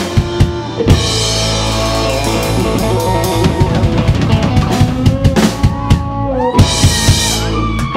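A rock band of electric guitar, bass and drum kit playing an instrumental passage, with steady kick and snare hits under sustained bass and bending guitar notes and a burst of cymbal crashes near the end.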